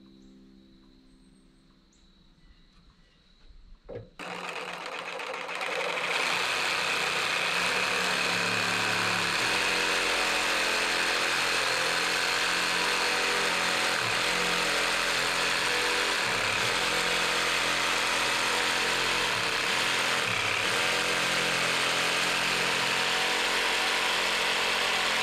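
A power tool's motor switches on with a click about four seconds in, spins up over a couple of seconds, then runs steadily.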